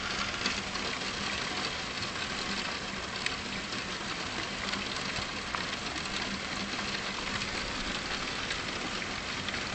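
Rain falling steadily during a thunderstorm, an even hiss of drops with scattered closer drop ticks.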